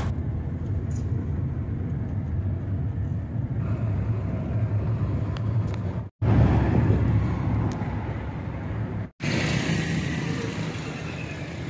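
Car road and engine noise heard from inside a moving car's cabin: a steady low rumble, broken twice by brief dropouts.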